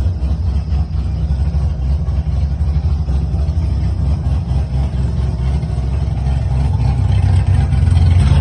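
Tuned drift car's engine idling steadily, running on its freshly installed braided fuel lines, and getting a little louder near the end.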